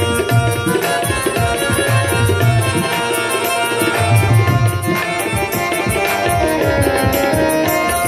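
Instrumental interlude of a Hindi devotional bhajan: tabla drums playing a steady rhythm under a sustained melody on a Roland XPS-10 electronic keyboard.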